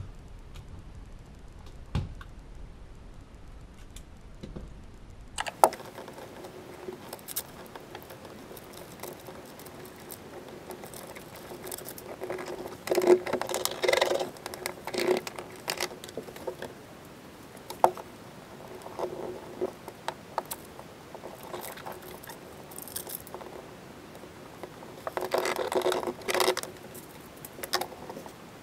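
Irregular scrapes, crinkles and taps of hands and a small tool working foil-faced Dynamat sound-deadening sheet on a car floor pan, in uneven bursts over a faint steady hum.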